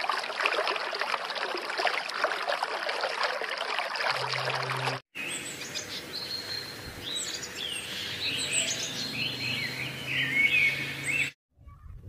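Aquarium water bubbling and trickling for about five seconds. Then, after a brief break, birds chirp and call with short, quick sweeping notes.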